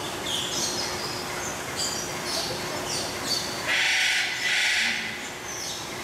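Male Eclectus parrot giving two loud, harsh screeches back to back about four seconds in, amid many short high bird chirps.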